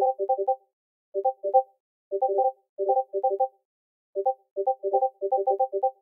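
Discord notification ping, a short electronic chime, sounding over and over in quick overlapping runs, broken by a few brief silences.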